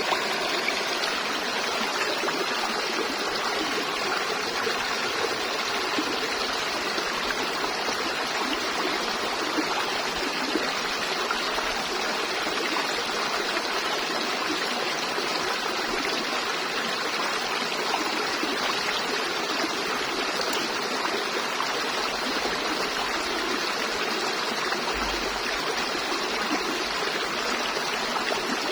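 River water flowing and babbling over stones, a steady even rush.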